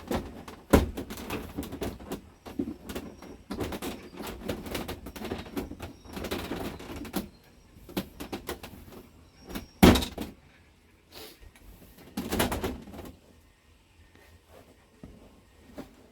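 Clicks, knocks and rustling of parts being handled while an RV dash is put back together, with sharp knocks about a second in and near ten seconds in.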